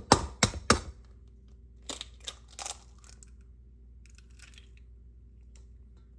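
An egg being cracked: several sharp taps of the shell against a bowl's rim in the first second, then softer clicks of the shell being opened about two seconds in, over a faint steady hum.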